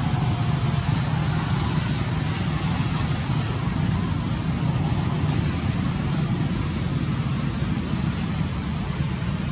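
Steady low rumbling background noise with an even hiss above it, unchanging throughout.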